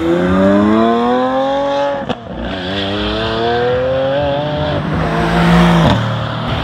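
Lamborghini Aventador S Roadster's V12 accelerating hard. The engine note climbs, breaks with a sharp crack at an upshift about two seconds in, and climbs again through the next gear. It then holds steady and drops off suddenly near the end.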